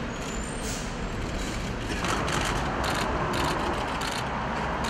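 Street noise with traffic, overlaid by camera shutters clicking in quick runs that grow busier in the second half.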